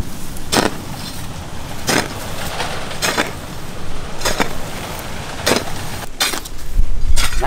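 Hoe blade chopping into dry earth while digging a pit, about seven strokes spaced roughly a second apart.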